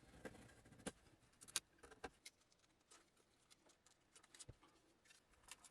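Near silence with faint, scattered small clicks and taps from the parts of an oscilloscope being handled as it is reassembled.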